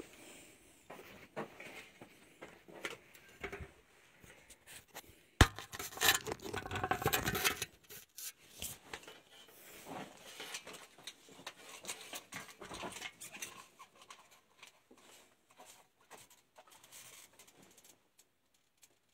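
Irregular small knocks, scrapes and rubbing of rock and gear being handled, with one sharp knock about five seconds in followed by about two seconds of louder scraping.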